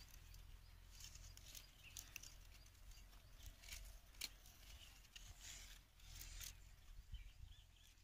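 Faint, scattered crackling and rustling of a dry grass-and-twig bird's nest being handled.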